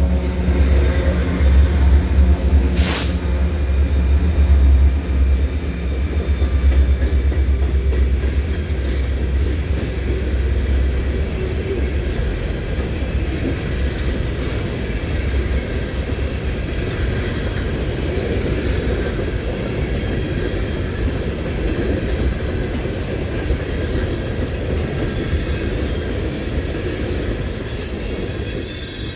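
Empty coal train rolling past: a heavy low rumble for the first several seconds, with one sharp bang about three seconds in, then a steady rumble of empty cars on the rails, with high wheel squeal coming and going in the second half.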